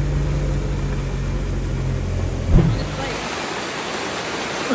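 A car engine running with a steady hum, cut off by a thump a little past halfway. Then steady heavy rain hiss takes over.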